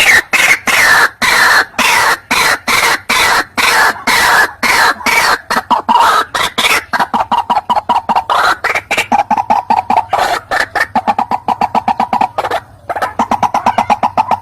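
White-breasted waterhen calling: a long, loud series of harsh repeated notes that speeds up in the second half.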